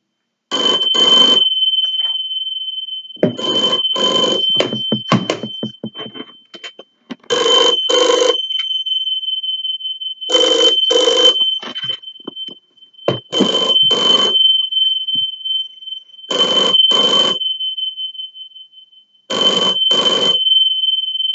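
Electromechanical bell of an old rotary telephone ringing in the double-ring cadence, two short rings about every three seconds, seven times in all. A steady high tone sounds underneath.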